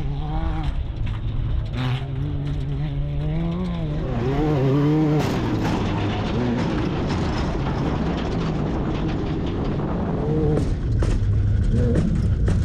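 Off-road race vehicle's engine running hard, its pitch rising and falling as it revs, with many sharp knocks and rattles over the top. It gets louder about four seconds in.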